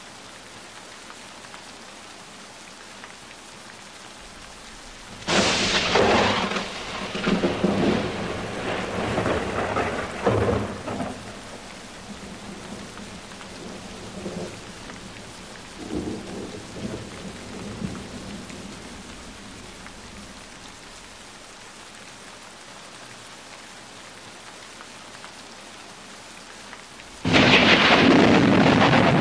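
Rain falling steadily, with a thunderclap about five seconds in that rumbles and fades over several seconds, and softer rumbles after it. Near the end the rain cuts suddenly to a much louder, heavier downpour.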